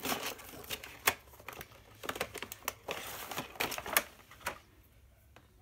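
Irregular sharp clicks and rustling of hard plastic packaging being opened and handled: a clear blister tray holding Beyblade top parts and launcher pieces. The clicking dies away about a second before the end.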